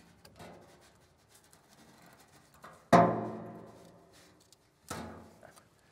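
Metal clanging inside the sheet-steel cabinet of an old P&H AC arc welder as parts are worked loose by hand: a loud clang about three seconds in that rings on for over a second, and a fainter ringing clang near the end, with light taps and scrapes in between.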